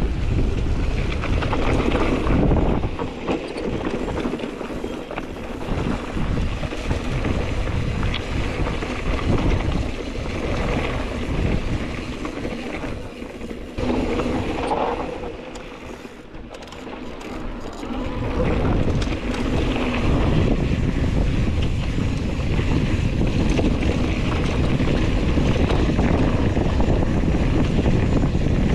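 Wind buffeting a mountain-bike rider's camera microphone while riding, as a loud, rough rush. It eases off for a few seconds about halfway through, then comes back strong and steady.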